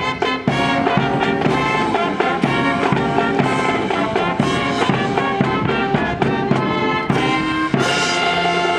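Brass band playing, with chords struck in a regular rhythm, settling into a long held chord near the end.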